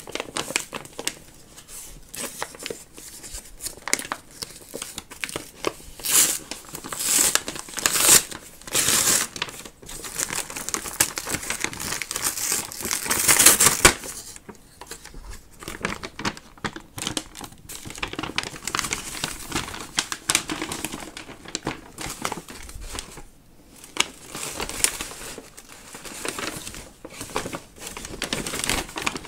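White paper wrapping being pulled off a parcel by hand, crinkling and tearing in irregular rustles and rips, loudest from about six to fourteen seconds in.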